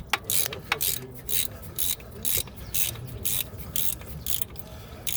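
A ratchet clicking in short, even strokes, about three a second, as it turns an extractor tool backing a broken exhaust manifold bolt out of the head.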